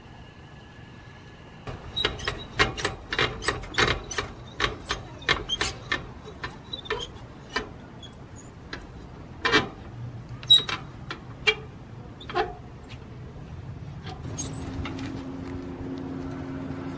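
Irregular metallic clinks and rattles from a crank handle turning a travel trailer's scissor stabilizer jack. A steady low hum comes in near the end.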